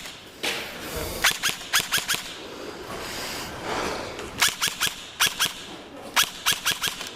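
Airsoft guns firing in short quick strings of sharp snapping shots: a string of about four near the first second or two, and more strings in the second half.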